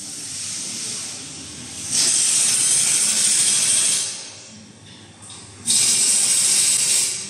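Compressed air hissing from a toilet paper roll packing machine's pneumatics in two long blasts of about two seconds each, starting and stopping sharply, after a softer hiss at the start.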